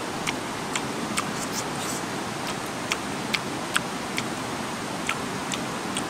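Irregular sharp clicks and smacks of a person chewing and picking at grilled chicken, about ten in six seconds, over a steady rushing hiss of river water.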